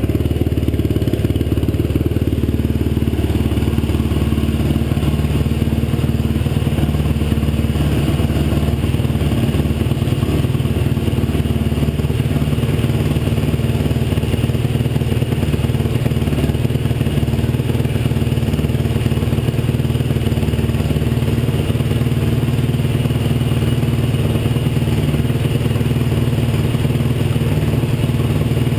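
Yamaha YFZ450 quad's single-cylinder four-stroke engine idling steadily.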